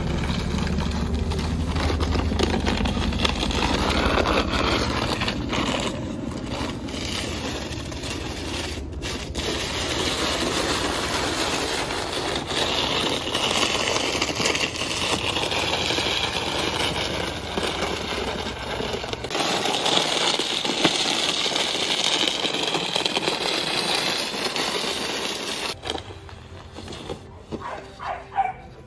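Wide-bladed snow shovel scraping and pushing snow across paving stones in long continuous scrapes with brief breaks. A low rumble runs underneath and stops about two-thirds of the way through.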